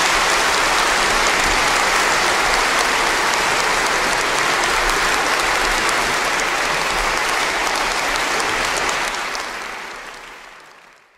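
Audience applauding steadily after a song; the applause fades away over the last two seconds.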